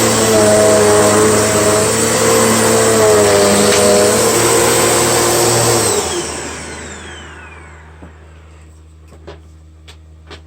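Dirt Devil Power Max XL vacuum cleaner running with a loud hiss and whine, its pitch wavering slightly; about six seconds in it is switched off and the motor spins down with a falling whine, leaving a low hum and a few light clicks.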